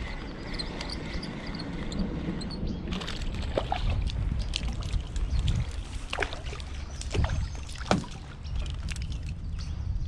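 Water sloshing and splashing around a canoe as a hooked goldeye is reeled in and thrashes at the surface beside the hull, with several sharp knocks along the way.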